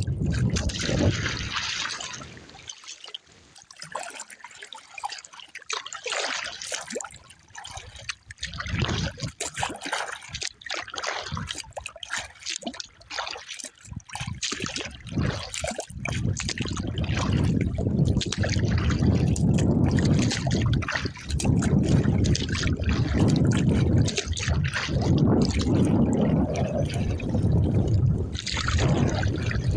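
Water trickling and splashing around a kayak in irregular bursts. From about halfway through, wind buffets the microphone with a low rumble under the water sounds.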